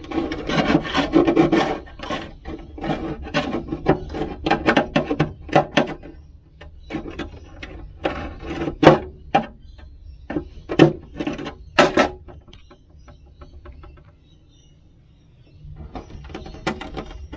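A hand tool scraping and digging at a corroded aluminium stringer in a Cessna 210, with dense rasping strokes at first, then separate short scrapes and knocks. The corrosion is exfoliation corrosion, so the aluminium's layers flake and break away under the tool.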